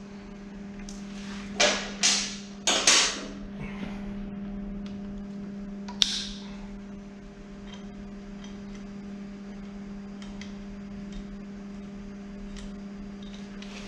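Parts being handled on a motorcycle's lower fork leg: a few short scrapes and knocks, then one sharp click about six seconds in and faint ticks after, over a steady electrical hum.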